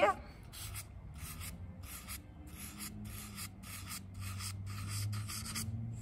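Sharpie permanent marker scratching across paper in a quick run of short repeated strokes, about three a second, as rows of feather lines are drawn.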